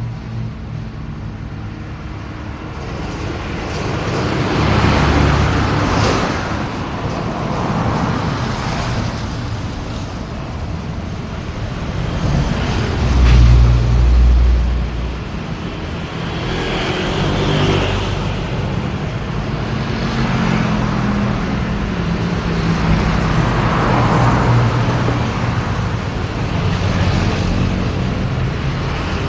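Road traffic: cars and other motor vehicles passing one after another, engine hum and tyre noise swelling and fading with each pass. The loudest pass, with a deep rumble, comes about halfway through.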